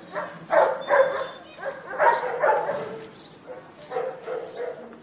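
An animal calling loudly in short repeated bursts, in two clusters about half a second and two seconds in, with softer calls near the end.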